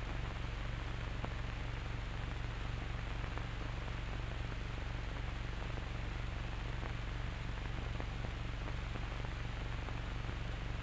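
Steady hiss with a low hum: the background noise of an old cine film soundtrack, with nothing else on it.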